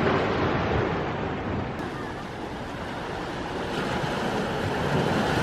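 Ocean waves washing onto the shore: a steady rush that eases about two seconds in and builds again toward the end.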